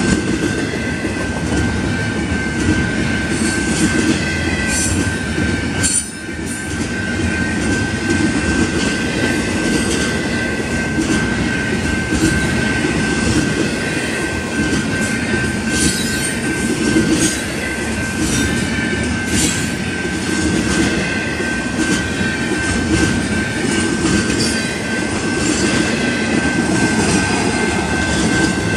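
Double-stack intermodal container cars rolling past on steel rails: a steady rumble of wheels on track with scattered clicks, over a steady high-pitched wheel squeal.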